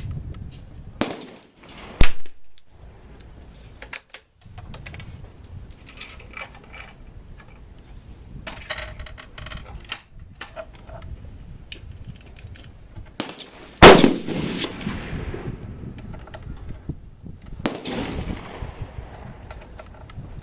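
Two shots from a Savage Mark II .22 LR rifle, about two seconds in and again about twelve seconds later, each a sharp crack with a short tail. Fainter clicks and handling noises fall between the shots.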